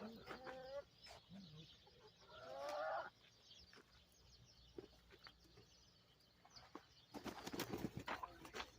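Laying hens calling softly in the coop, with one louder rising call about two and a half seconds in. Near the end, a short flurry of rustling and scratching.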